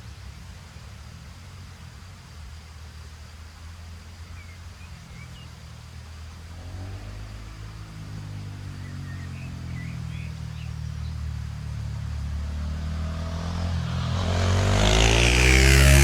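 2020 KTM 690 SMC-R's single-cylinder engine through a LeoVince Nero slip-on exhaust with cat and dB-killer, approaching from a distance: a low engine note that grows steadily louder and passes close at the very end, its pitch dropping as it goes by. Faint bird chirps about four and nine seconds in.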